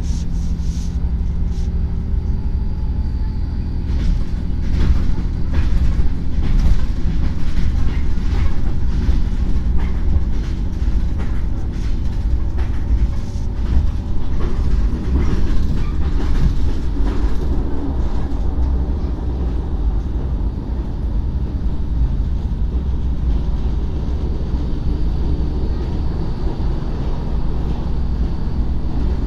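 Running noise of a passenger train heard from on board: a steady low rumble with irregular clacks of the wheels over rail joints and points, thickest through the first half.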